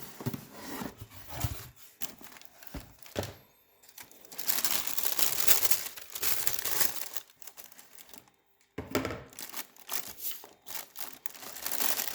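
Shoe box being unpacked: wrapping crinkling and rustling in irregular bursts, most continuous and loudest through the middle, with a few short knocks.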